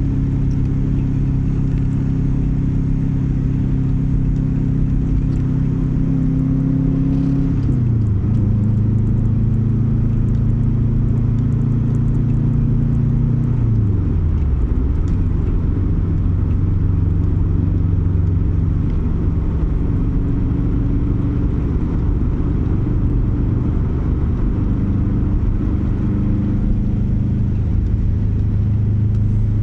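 Subaru flat-four boxer engine running with its low exhaust rumble, the rumble that comes from unequal-length exhaust manifolds. The engine note holds steady, drops in pitch about a quarter of the way through and again about halfway, then rises a little later on.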